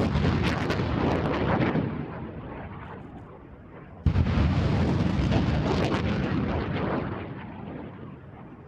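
Rocket launches from an M270A1 MLRS launcher: the roar of one rocket fades as it flies off, then about four seconds in a second launch starts with a sudden blast and a long roar that fades away.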